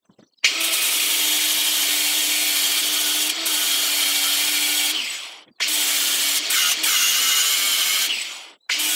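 Ryobi angle grinder grinding the steel edge of an anvil to radius the corner, its motor whining steadily under load. It runs in three spells, stopping and winding down about five seconds in and again near the end, then starting up again each time.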